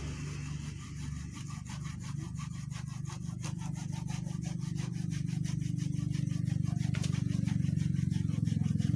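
A hand blade sawing or rasping on the wood of a sancang tree's trunk in quick, even strokes, about four a second, as the bark is cut for an air layer. Under it a low engine hum grows louder toward the end.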